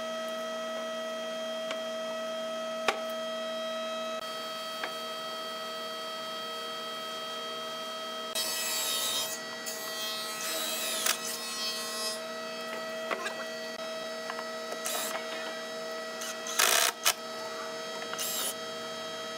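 Cordless drill driving screws into a plywood cabinet in several short bursts, its motor whirring up and down, the first about eight seconds in and two brief ones near the end, over a steady background hum.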